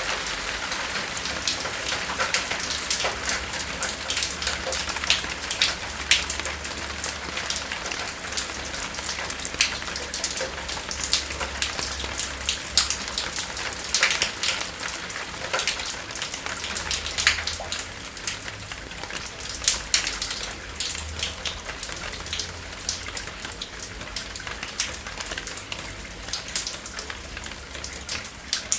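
Steady rain falling, with many separate drops striking close by as sharp, irregular ticks over a continuous hiss.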